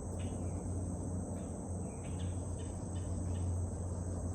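Steady low rumble of constant highway traffic in the distance, with a continuous high-pitched insect trill of crickets over it.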